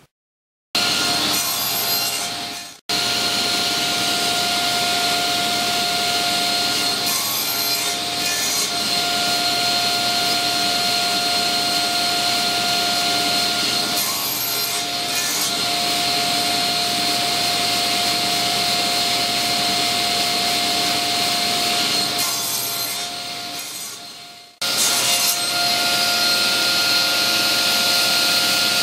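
Table saw running with a steady whine, its blade cutting grooves in a board that is fed across it on a crosscut sled. The sound cuts off abruptly near the start and again about three-quarters of the way through, then resumes.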